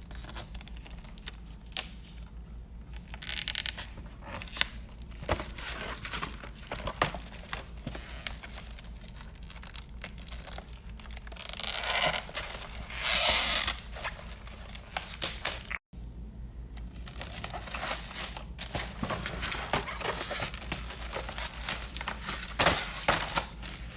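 Tape being peeled and torn off a taped, plastic-wrapped package, with crinkling and scratchy handling noise close to the microphone. There is a longer, louder ripping stretch about halfway through.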